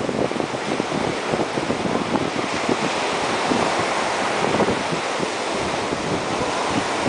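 Ocean surf breaking on the beach, with wind buffeting the microphone in uneven gusts.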